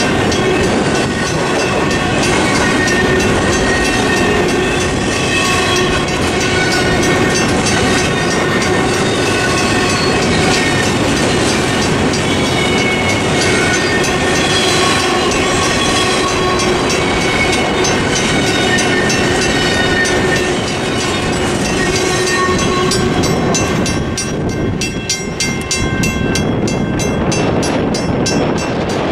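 Intermodal freight train's well cars rolling through a level crossing, wheels clattering over the rail joints with thin drifting wheel tones. Near the end the last car clears and the crossing signal's mechanical bell is left ringing in an even run of strokes.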